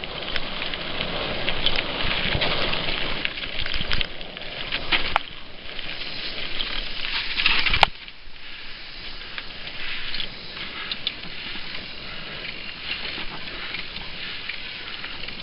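Mountain bike ridden fast over a dirt singletrack, heard through a helmet camera: tyres rolling over dirt and leaves, with many small rattles and knocks from the bike. It is loud and rough for the first eight seconds, then a sharp knock and a quieter, steadier rolling noise.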